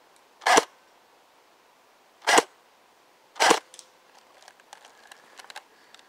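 Airsoft guns firing single shots: three sharp cracks, about half a second, two and a quarter seconds and three and a half seconds in.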